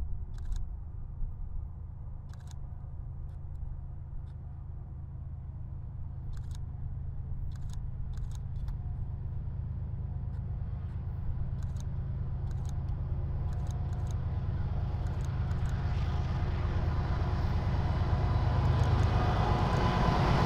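Approaching diesel freight locomotives: a low engine drone that grows steadily louder as they near, with a few faint sharp clicks.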